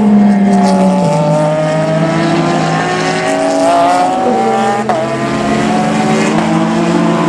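Peugeot 9X8 hybrid hypercar's twin-turbo V6, with another race car's engine alongside, accelerating out of a corner. The engine note climbs in pitch and drops sharply at a gear change about five seconds in.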